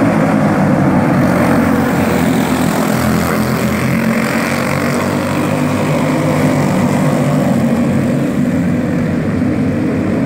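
A pack of racing go-kart engines running together in a steady, continuous drone as the karts circle the dirt oval.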